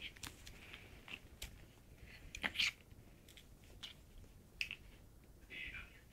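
A German Shepherd and a Shih Tzu mouthing and play-biting each other on bedding: scattered small clicks and short rustles of fur and fabric, loudest a little over two seconds in.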